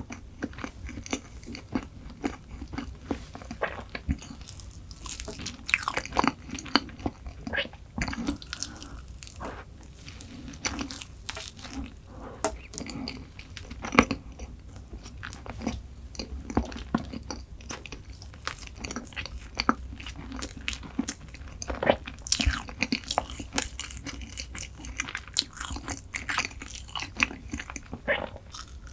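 Close-miked mukbang eating sounds: a person biting and chewing chocolate desserts, with irregular wet clicks and crisp crunches, a sharper crunch about halfway through.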